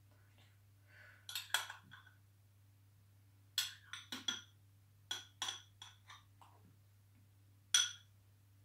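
Metal spoon clinking and scraping against a ceramic bowl as a mixture is spooned out of it: short clinks in a few small clusters, the last one on its own near the end.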